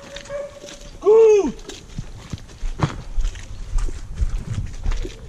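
A dog gives one loud, high bark about a second in, rising then falling in pitch; after it come footsteps along a muddy track.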